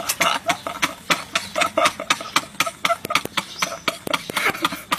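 Two men laughing hard and uncontrollably, in rapid breathy bursts several times a second.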